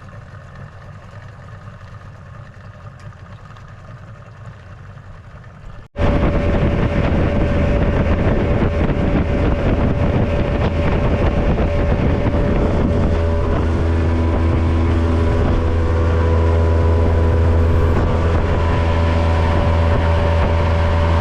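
Outboard motor of a small fishing boat running under way: a fainter low rumble at first, then, after a sudden cut about six seconds in, much louder and steady with a strong low hum.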